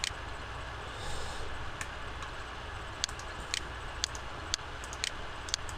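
Sparse, irregular clicks of a computer mouse over a steady low electrical hum, about six clicks in all.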